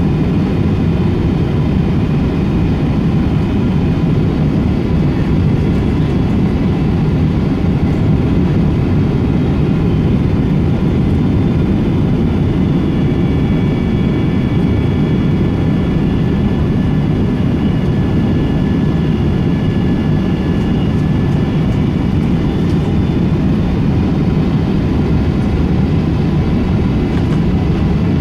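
Steady cabin noise inside a Boeing 777-200 airliner: a constant low rumble from the jet engines and airflow, with faint high whining tones from the engines.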